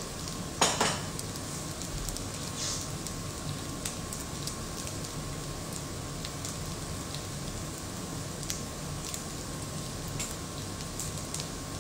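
Chijimi pancake batter frying in sesame oil in a frying pan over medium-low heat, left unmoved: a soft, steady sizzle. A sharp clack about a second in, and a few light ticks later.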